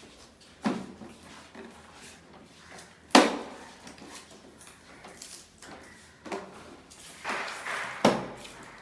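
Three sharp knocks, hard objects striking, the loudest about three seconds in, with a stretch of rustling or scraping just before the last one.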